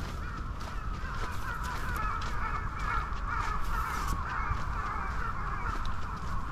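Crows cawing, a dense, unbroken chorus of calls.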